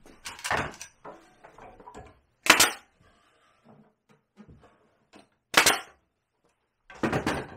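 Pneumatic nail gun driving nails into the pine roof of a wooden nesting box: about four sharp shots, each a couple of seconds apart, with small knocks of the tool and wood in between.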